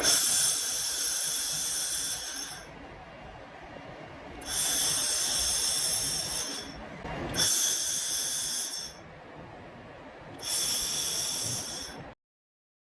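Handheld 1500 W fiber laser welder working on stainless steel in four bursts of about two seconds each, each one a loud hiss. Between bursts a quieter, steady machine noise continues.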